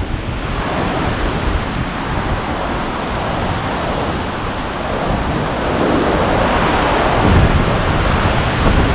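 Storm wind blowing in strong gusts, with the wind buffeting the microphone in low rumbles. It grows louder in the second half.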